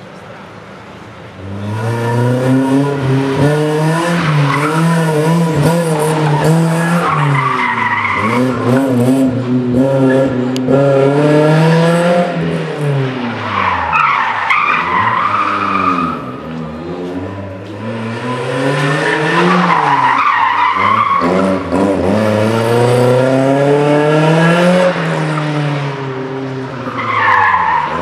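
Rally car pulling away hard about a second and a half in, then driven flat out around a tight cone course: the engine revs climb and fall again several times, and the tyres squeal in the turns about four times.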